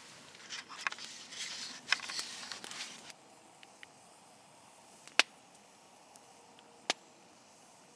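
Rustling and handling noise from clothing and gear for about the first three seconds. Then a faint steady hiss, broken by two sharp clicks.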